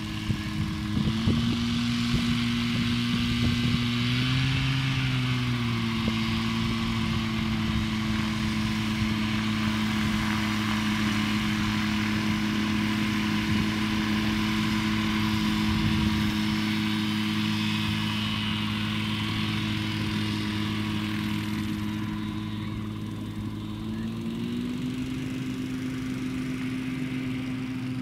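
Ridge Runner ultralight's engine and propeller running steadily at low taxiing power. The pitch steps up slightly about a second in, rises briefly around four to five seconds in, and rises again near the end.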